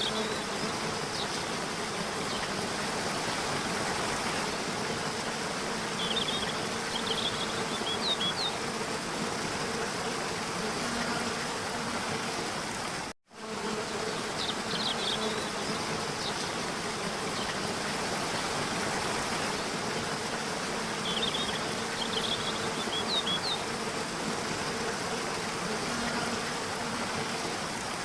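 Steady buzzing hum of bees or similar flying insects, with a few short high bird chirps around six seconds in and again around twenty-one seconds. The sound cuts out for an instant at about thirteen seconds, then the same pattern repeats.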